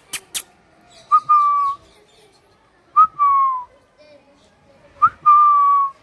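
Three sharp clicks right at the start, then a green Indian ringneck parakeet whistling three times about two seconds apart. Each whistle is a quick upward chirp followed by a held whistle that falls slightly and lasts about half a second.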